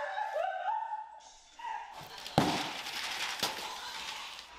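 High-pitched gliding vocal sounds for the first two seconds. Then packing paper and cardboard rustle as a flat-pack box is unpacked, with a sharp knock about two and a half seconds in.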